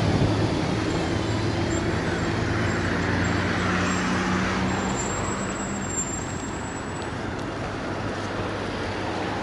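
Street traffic: a motor vehicle's engine drone and tyre noise close by, the engine drone dying away about six seconds in.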